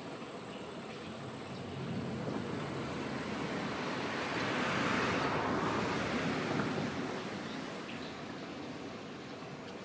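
A vehicle passing by: a steady rushing noise that swells from about two seconds in, is loudest around the middle, and fades away near the end, over a constant background hiss.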